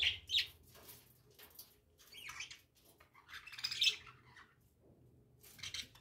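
A flock of budgerigars chirping in short, irregular bursts, the loudest burst a little before four seconds in.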